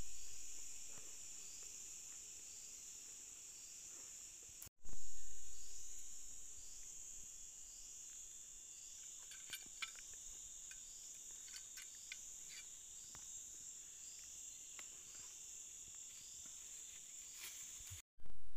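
Insects droning steadily in forest, one high continuous buzz with a small chirp repeating about twice a second. A low rumble fades out at the start and swells again about five seconds in, and there are a few faint clicks midway.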